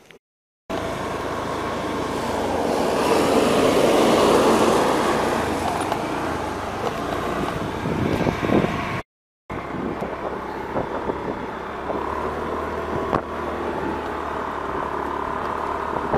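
Motorcycle running along a road, heard from the rider's seat, with a steady low engine note under heavy wind rush on the microphone that swells loudest a few seconds in. The sound drops out completely twice, briefly, once near the start and once about halfway.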